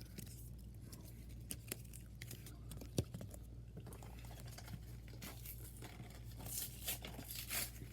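Faint handling of trading cards and a foil booster-pack wrapper: scattered small clicks and rustles, with a short stretch of crinkling near the end.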